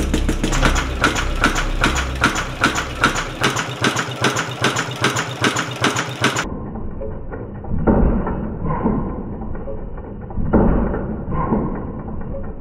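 Heavy-duty industrial leather sewing machine stitching thick leather. At first it makes a fast, even mechanical clatter of needle strokes. After that it runs in short bursts of about a second, starting and stopping three times.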